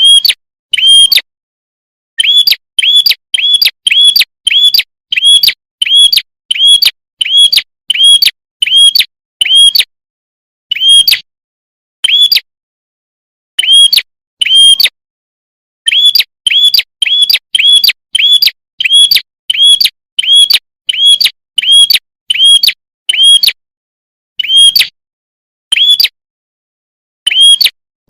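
Lure-call recording of a prenjak kepala merah (red-headed prenjak), a small songbird: loud, clear single chirps repeated about twice a second in runs, with brief pauses between runs.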